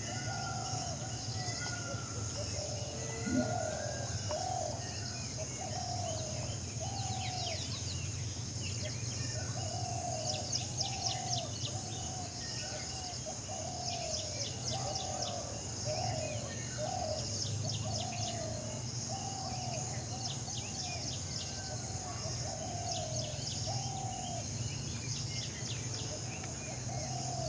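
Birds calling: a short low note repeated about once a second, with runs of quick high chirps, over a steady low background hum.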